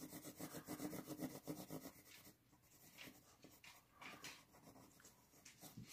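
Quiet scribbling on a paper chart, a quick run of short back-and-forth strokes for about two seconds, then a few faint scratches.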